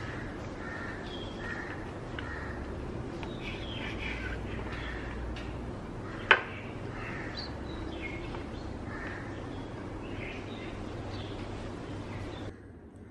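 Crows cawing repeatedly in the background, with one sharp knock of a knife on a bamboo cutting board about six seconds in.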